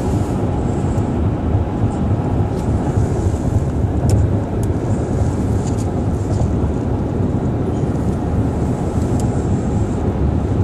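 Steady low rumble of road and engine noise inside the cabin of a moving car, with a few faint clicks.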